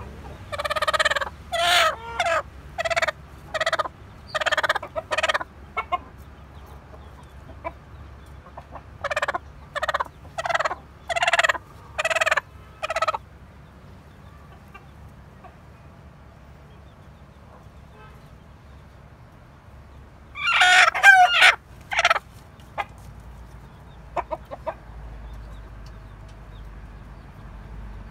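Hen on her nest giving short, pitched clucks in a run of about six, then after a pause a second run, as a hand reaches under her to the eggs. About twenty seconds in comes a louder, wavering burst of fowl calls.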